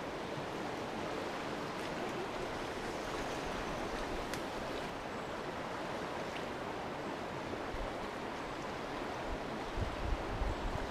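Fast river current rushing steadily, with a few low bumps near the end.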